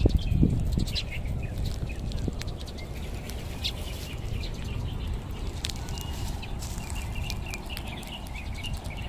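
Small birds chirping in scattered short notes over a steady low rumble.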